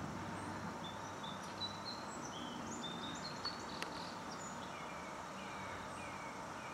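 Faint outdoor ambience: small birds chirping in short notes, including a run of short falling notes about halfway through, over a steady background hiss, with a few faint clicks.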